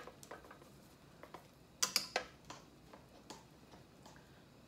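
Light clicks and taps of dishes and utensils being handled, with two sharper knocks about two seconds in.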